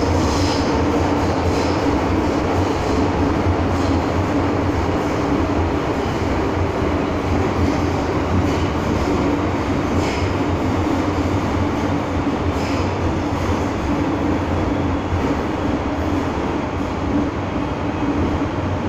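Steady running noise heard inside an MTR M-Train electric multiple unit carriage travelling through a tunnel: a constant rumble of wheels on rail with a low hum. A few brief, faint high squeaks cut through it.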